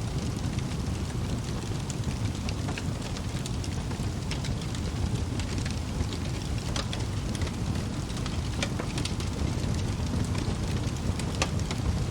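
Wood fire burning in a fireplace: a steady low rumble of flames with frequent sharp crackles and pops from the burning logs.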